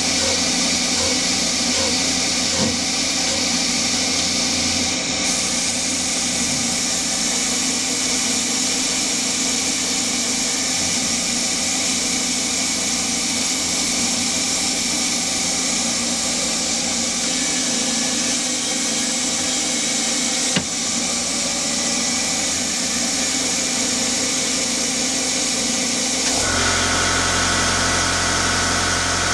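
Steady hiss of compressed air from a Noga air mister at a small CNC lathe, over a steady machine hum. A single sharp click about twenty seconds in, and a couple of seconds before the end a deeper motor hum starts up and keeps running.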